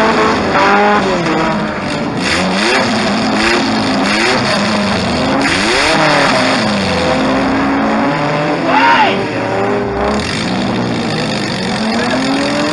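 Demolition derby car's engine revving up and down repeatedly, heard from inside the stripped-out cabin, with one sharp high rev about nine seconds in and a few short bursts of rushing noise.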